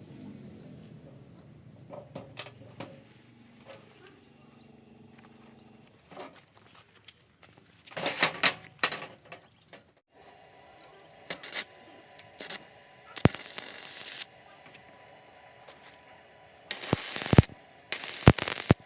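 Stick (SMAW) welding arc with a 6013 rod, struck several times in short crackling bursts of up to about a second, with quiet gaps between them, as for tack welds.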